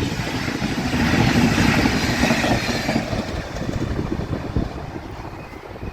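Enterprise passenger train running through a level crossing, its wheels and engine rumbling and hissing on the rails, fading away as it moves off.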